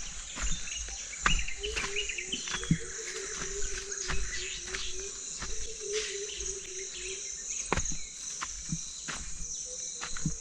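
Footsteps and rustling through tall grass: a string of irregular soft knocks and swishes over a steady high chorus of insects.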